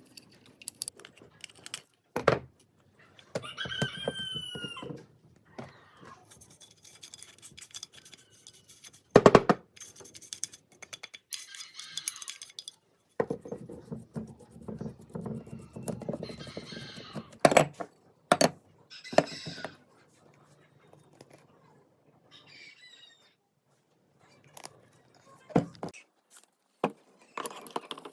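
Intermittent sharp knocks, clicks and scrapes from hand work on the fan's parts, with a short bird call, rooster-like, about four seconds in.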